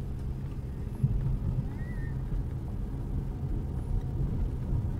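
Second-generation Honda CR-V's engine and tyre noise heard from inside the cabin while driving slowly over a rough, muddy road: a steady low rumble, with one brief knock about a second in.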